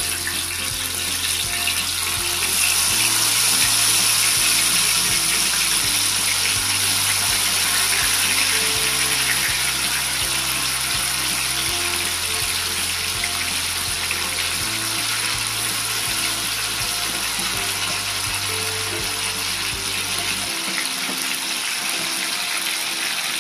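Marinated korameenu (snakehead murrel) fish pieces frying in hot oil in an iron kadai, a steady dense sizzling crackle. Background music with a repeating bass line plays under it and stops near the end.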